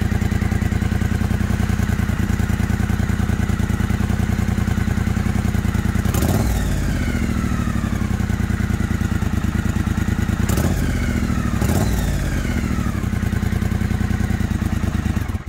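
Triumph Street Twin 900's parallel-twin engine idling with an even, lumpy beat through a Motone X-pipe and slash-cut pipes with the catalytic converter bypassed. The throttle is blipped about six seconds in and twice more around ten to twelve seconds in, and the revs fall back to idle after each.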